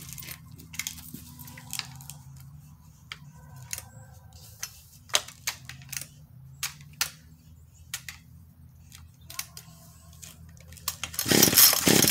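Small clicks and rattles of handling, with keys jangling, then near the end two loud pulls of a Craftsman chainsaw's recoil starter cord cranking its two-stroke engine. The saw is hard to start, which the owner traces to the fuel system.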